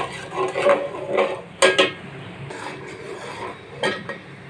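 Perforated metal spoon stirring and scraping tomato-and-spice masala in a metal pot as the masala is fried, with several sharp clinks of spoon on pot in the first two seconds and another near the end.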